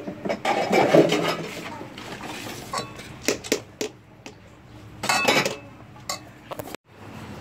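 A metal spoon clinking and scraping against a steel pot as cooked rice is stirred and scooped: a run of sharp clinks, with longer scrapes about a second in and about five seconds in.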